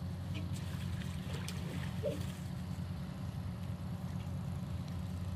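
A steady low hum, with faint splashes and trickles of water poured from a metal basin in the first couple of seconds.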